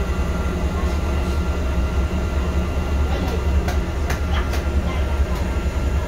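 Steady low rumble of a moving bus heard from inside, with a few sharp clicks around the middle.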